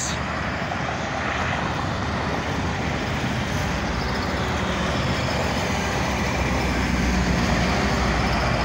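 Steady road traffic and the engine of a zero-turn riding mower running. The noise grows a little louder near the end as a tractor-trailer goes by.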